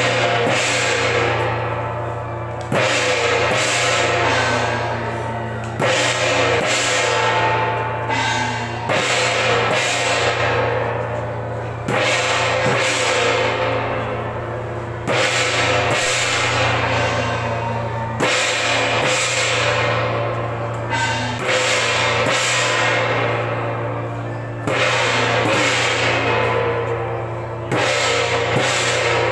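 Taiwanese temple-procession percussion: big cymbals and gongs crashed together about every three seconds, each crash ringing away slowly, with drumming between. A steady low hum runs underneath.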